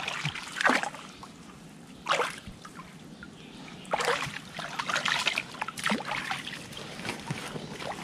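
Shallow muddy water sloshing and splashing as a person wades and works their hands through it, feeling in the mud for lokan clams by hand. A few separate splashes, then a busier stretch of sloshing about halfway through.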